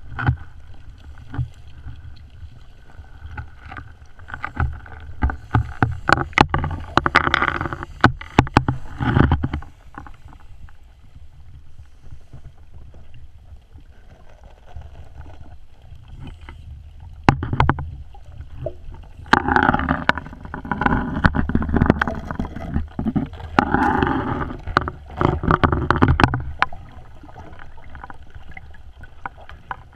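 Scuba divers' exhaled air bubbling out of their regulators, heard underwater through a camera housing over a steady low rumble. The bubbling comes in two long bursts, about six seconds in and again from about twenty to twenty-six seconds, with quieter stretches between.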